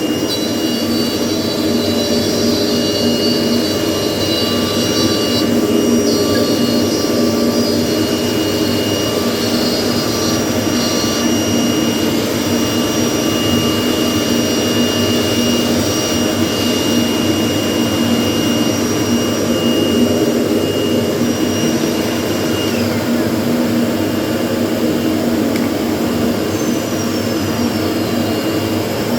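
A CNC router's spindle whines at a steady high pitch over the steady drone of a vacuum pump while the router cuts a square in MDF. About three quarters of the way through, the high whine drops away and the pump drone carries on.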